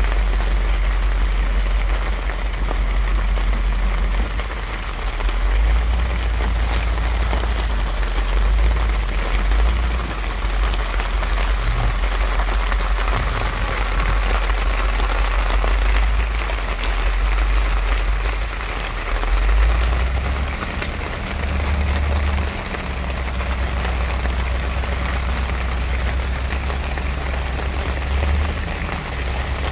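Steady rain falling and pattering on a plastic tarp overhead, with a low rumble underneath.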